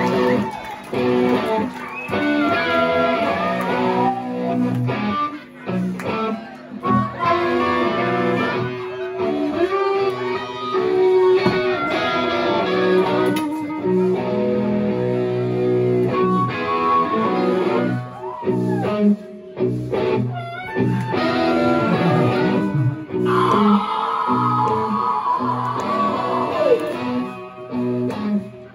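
Live blues-rock band playing an instrumental passage, with electric guitar lines over drums. The music drops out briefly a few times.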